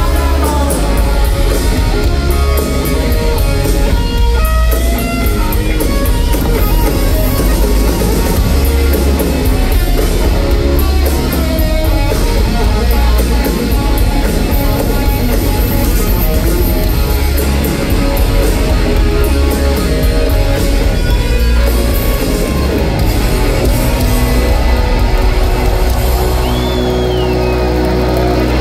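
Live rock band playing loudly in an arena, with electric guitars driving over a drum kit.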